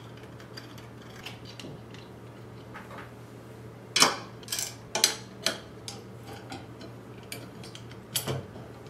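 Small metal clicks and clinks of M3 screws and steel parts being handled and set into a cast aluminium tooling-plate frame: a few faint ones at first, a cluster of sharp clicks about four to five and a half seconds in, and a couple more near the end, over a faint steady hum.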